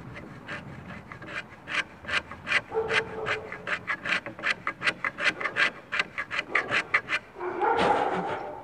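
Hand block plane cutting across the grain of cumaru hardwood in quick short strokes, about four rasping cuts a second. Near the end a longer, louder sound with a steady pitch takes over.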